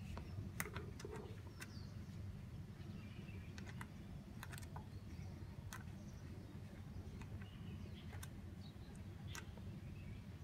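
Faint scattered clicks and small taps as the hose connector of a handheld cordless tyre inflator is fiddled and screwed onto a bicycle tyre valve, over a low steady outdoor hum. The pump is not running.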